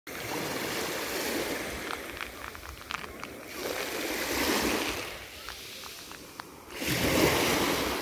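Small sea waves washing up onto a shell-grit shore and draining back, three washes a few seconds apart, with faint crackling clicks in the lulls between them.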